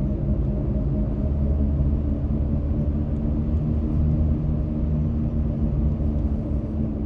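Steady low hum from a 2024 Ford F-150 PowerBoost hybrid pickup: a few constant tones over a rumble, holding the same pitch and level. The owner cannot explain the noise and hears it in both electric and gasoline mode.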